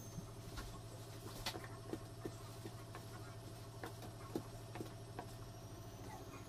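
Wooden spatula turning and folding thick amala (yam-flour dough) in a metal pot: irregular soft sticky slaps and light clicks of the spatula against the dough and pot, the sharpest one about four seconds in.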